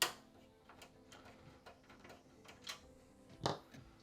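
Small clicks and knocks of PC hardware being handled: a sharp click at the start, scattered light ticks, and a louder knock about three and a half seconds in, over a faint steady hum.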